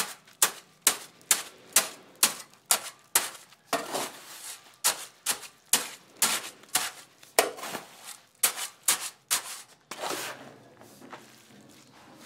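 Steel shovel blade chopping again and again through a pile of damp sand-and-cement mix and striking the concrete floor beneath, about two sharp strikes a second. Near the end the strikes give way to softer scraping as the wet mix is shovelled up.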